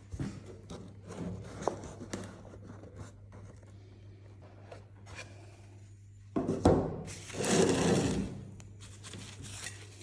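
Close hand-handling noises: light clicks, taps and rubbing, with a louder rubbing or wiping sound lasting about two seconds past the middle, over a steady low hum.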